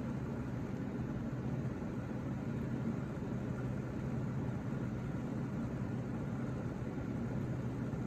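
Steady low background hum with a faint hiss, the room's machinery or ventilation noise, with no distinct events.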